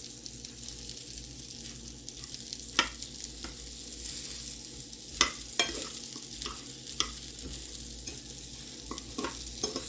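Potato rounds sizzling as they fry in oil in a pan, a steady hiss with about six sharp clicks scattered through.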